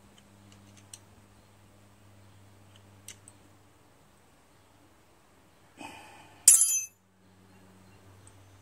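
Light metallic clicks of small carburetor parts being handled, then, about two-thirds of the way through, one sharp metal clink with a short bright ring as the Honda GCV160 carburetor's metal float bowl is brought against the carburetor body during reassembly. A steady low hum runs underneath.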